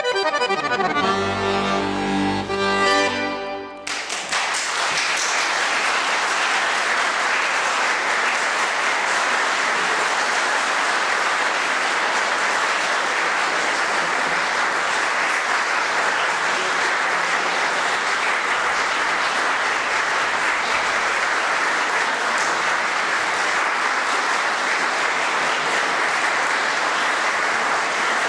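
Chromatic button accordion playing a fast falling run into a final low chord that cuts off about four seconds in. The audience then applauds steadily.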